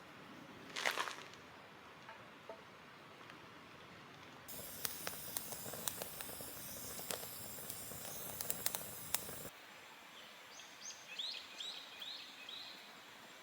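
Wood fire crackling with irregular sharp pops for about five seconds mid-way, set off abruptly at both ends. Near the end, a bird calls in a quick run of short falling notes over quiet outdoor ambience.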